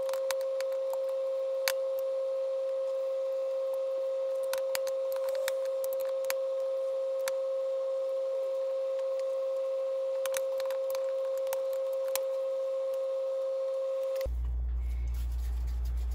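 A steady electronic tone holding one pitch, with faint scattered clicks beneath it. It cuts off abruptly about two seconds before the end.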